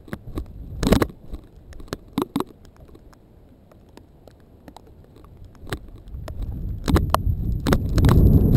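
Camera handling and footstep knocks, scattered at first, then from about six seconds in a low rumble of wind and movement on the microphone that builds steadily, with quicker footfalls, as the camera-holder starts moving fast.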